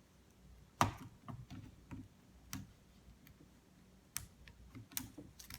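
Scattered plastic clicks and knocks from a Lenovo ThinkPad laptop keyboard being pried loose and pulled back out of its frame. The loudest click comes a little under a second in, with a few sharper ones spaced irregularly after it.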